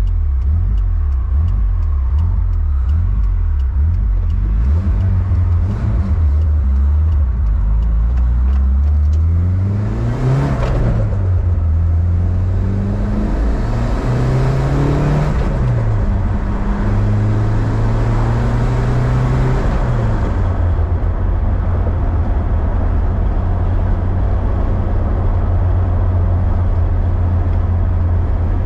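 Turbocharged Toyota 22R-E four-cylinder engine of a 1993 Toyota pickup, heard from inside the cab while driving. It runs at a steady low drone, then about ten seconds in the note climbs as the truck accelerates, drops, climbs again and holds higher for a few seconds, and shortly after settles back to a steady lower drone.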